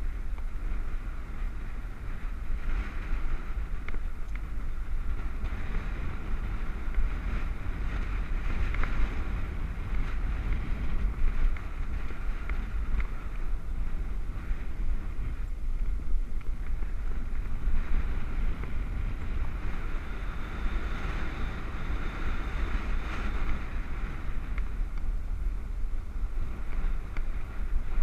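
Wind rushing over a helmet-mounted action camera's microphone while riding a road bike, a steady rumbling rush with the bike's running noise underneath.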